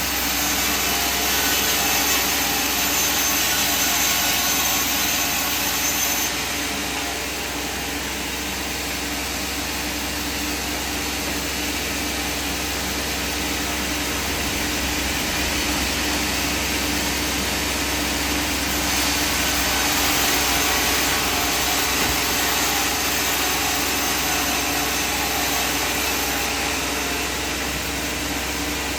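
Sawmill machinery running steadily, with a louder hiss during the first six seconds and again about two-thirds of the way through.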